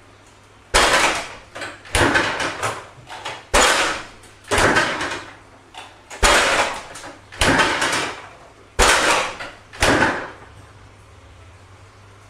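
A refrigerator door banging about eight times in a row, roughly once a second: sharp, loud bangs, each dying away quickly. Over a faint steady hum.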